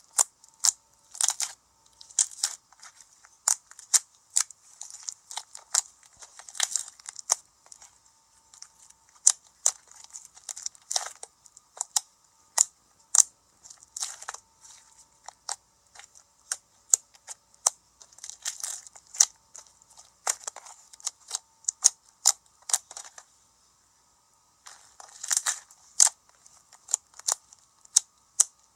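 Slime being squeezed and stretched by hand, giving irregular sharp clicking pops of trapped air with short crackly runs.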